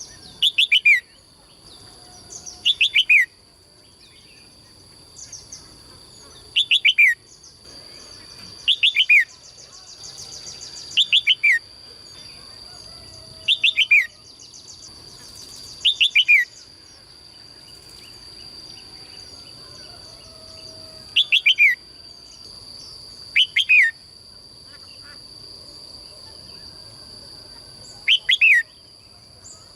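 Caged songbird singing short phrases of quick, falling whistled notes, each about half a second long, repeated about ten times at irregular gaps of two to five seconds, over a steady high-pitched whine.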